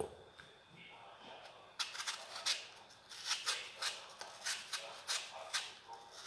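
Kitchen knife peeling the skin off a green apple: a quick series of short, crisp cutting strokes, about two to three a second, starting about two seconds in.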